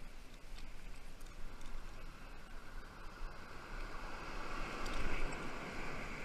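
Steady rushing wash of surf and wind on the microphone, swelling about five seconds in.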